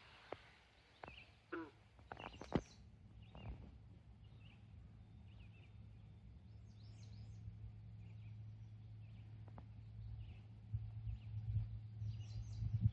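Outdoor ambience with birds chirping now and then. A few sharp knocks come in the first three seconds, a steady low hum builds from about halfway, and thumps sound near the end.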